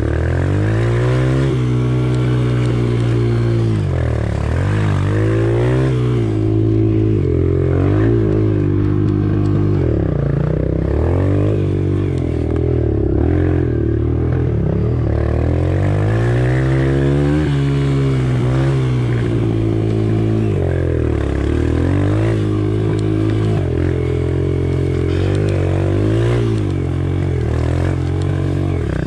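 Off-road bike engine being ridden, revving up and easing off over and over, its pitch rising and falling every second or few seconds.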